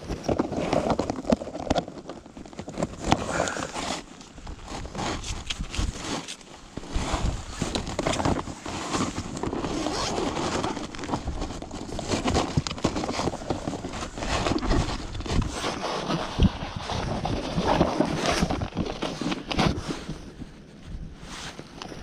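Close rustling of winter clothing and handling noise, with irregular knocks and crackles, as hands work with a fish and a bag right against the body-worn camera.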